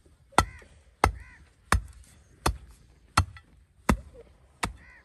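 A long iron digging bar jabbed down into damp earth, tamping the soil around a wooden stake: seven sharp strikes, evenly spaced, about three every two seconds.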